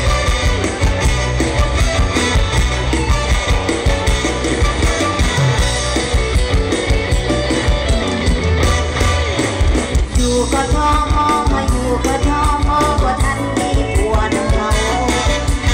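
Mor lam troupe's stage band music played loud through the PA, with a heavy steady bass beat under the melody.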